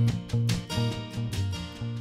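Background music with strummed guitar, gradually fading out.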